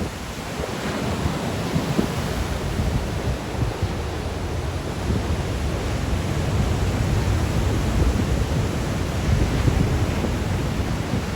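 Sea waves breaking in a strong wind, with the wind buffeting the microphone: a steady rush with a heavy low rumble.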